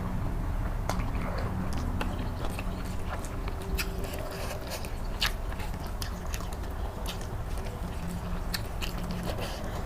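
Close-miked chewing of a mouthful of egg curry, with many irregular wet mouth clicks and smacks.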